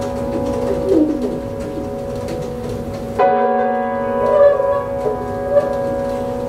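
Large jazz ensemble holding a sustained chord, with a wavering line sliding in pitch above the low notes. About three seconds in, a fresh chord enters with a sharp attack and is held.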